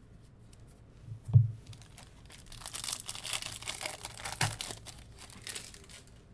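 A foil trading-card pack wrapper being torn open and crinkled by hand, crackling for about three seconds, after a sharp knock about a second in.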